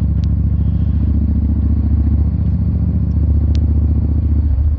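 Yamaha XVS650 Drag Star's air-cooled V-twin engine running steadily while the bike is ridden, with a loud, low, even note.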